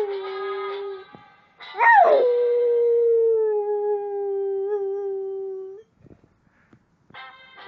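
Dog howling along with a noise maker in long drawn-out notes. About two seconds in, a loud howl starts high, slides down and holds steady for about four seconds, and another howl begins near the end.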